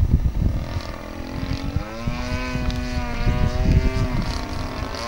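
Radio-controlled aerobatic model airplane's engine running in flight, its pitch rising about a second in and then wavering up and down as the plane manoeuvres, with heavy wind rumble on the microphone.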